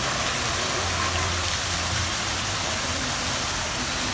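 Public fountain's water pouring and splashing into its stone basin: a steady rush of water.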